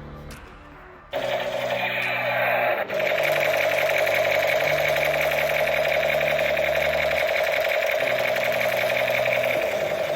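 Battery-powered toy gun's electric mechanism buzzing with a fast, steady rattle. It starts suddenly about a second in and keeps going. Background music plays underneath.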